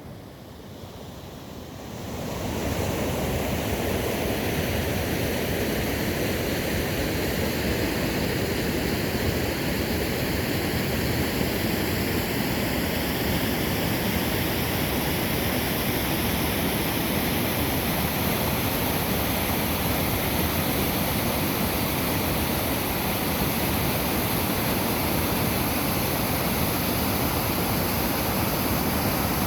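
Whitewater of a river ledge rapid rushing steadily, swelling over the first two seconds and then holding level.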